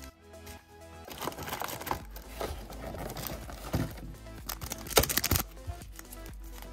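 A foil trading-card booster pack crinkling and being torn open by hand, with sharp crackles, over background music.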